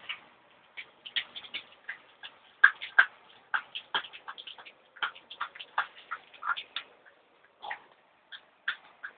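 Husky puppies playing: a quick, irregular run of light clicks and taps that thins out near the end.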